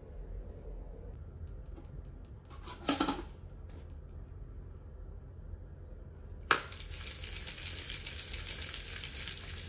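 A metal clank about three seconds in. Then, from about six and a half seconds, a sharp clank and a fast scraping rattle as a round metal cookie cutter is swirled around a fresh-baked cookie on a metal half-sheet pan, tightening its edges.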